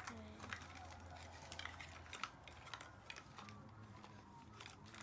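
Faint scattered clicks and taps of small plastic toy pieces and packaging being handled as surprise eggs are opened, over a low hum that stops about two seconds in.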